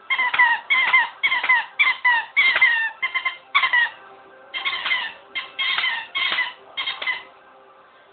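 Squeaker in a dog toy squeaking about a dozen times in quick succession as a dog chews on it, each squeak dipping in pitch, with a short pause midway.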